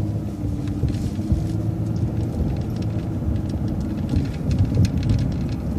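City bus running with a low engine rumble through a right turn. A steady hum rides over it for the first four seconds or so, then fades.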